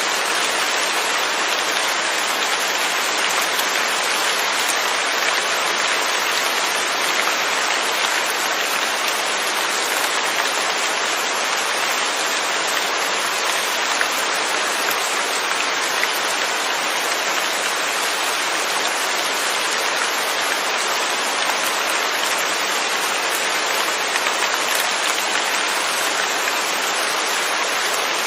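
Steady rain falling without thunder, an even hiss of many raindrops.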